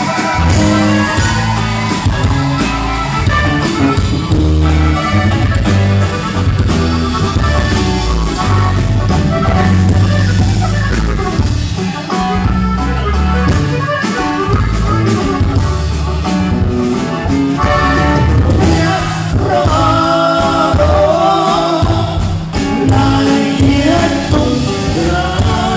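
Live norteño music: a button accordion, guitar and electric bass play a song with a steady beat, with sung vocals.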